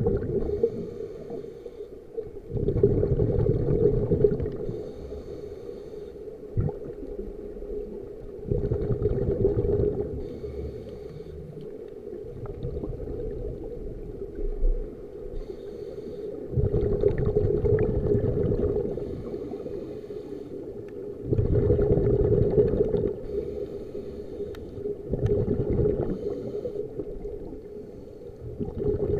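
Scuba diver breathing through a regulator underwater: exhaled bubbles gurgle out in loud bursts of a second or two every five or six seconds, with quieter inhalations between.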